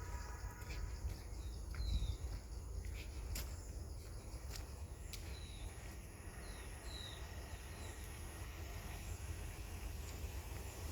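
Outdoor ambience: a few short, falling bird chirps over a steady, high insect drone and a low rumble, with a few sharp clicks.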